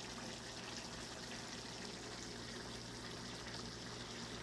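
Faint, steady hiss of a pan of chicken and green beans simmering and sizzling quietly on the stove, with a low steady hum underneath.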